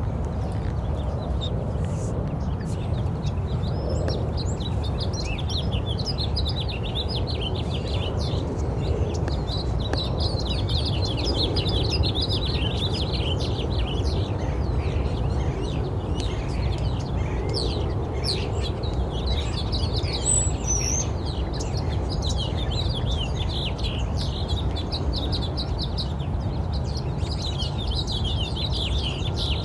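Many small birds chirping and twittering in a dense, continuous chorus over a steady low rumble.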